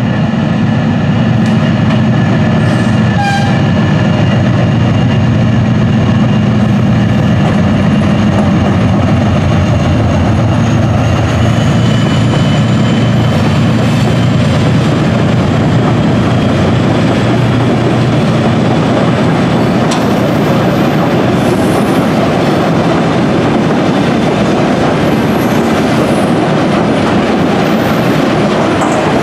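2TE10M-family diesel locomotives' two-stroke opposed-piston 10D100 engines running under power as they pull a freight train past. In the second half the engine note gives way to the steady rumble and clickety-clack of tank cars and freight wagons rolling by.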